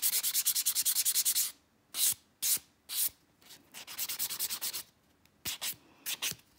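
Nail buffing block sanding a cured gel nail, rubbed back and forth to smooth its rough surface. It starts with a quick run of short strokes, then slows to separate strokes with pauses between them.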